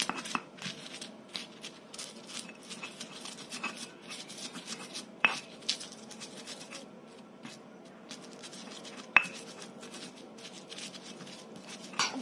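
Stone pestle (ulekan) grinding and crushing chillies, shallots and garlic on a flat stone mortar (cobek): rough scraping and irregular knocks of stone on stone, with a few louder sharp knocks about five and nine seconds in and near the end.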